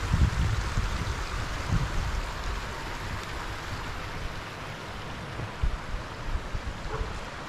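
Shallow river running over stones, a steady rushing hiss of water, with irregular low rumbles and thuds, strongest about a second in.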